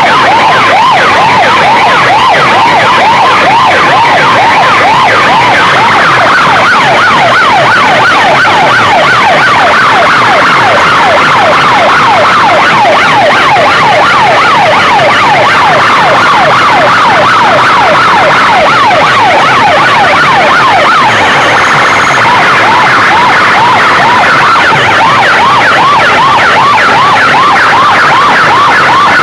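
Very loud electronic siren sounds, several tones sweeping rapidly up and down and overlapping without a break, as played through a sound system in a 'versus' contest.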